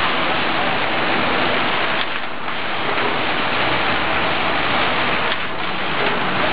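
Steady, loud machine noise of a bag-closing sewing machine running on a bagging line, stitching the tops of filled sacks shut as they pass on a conveyor.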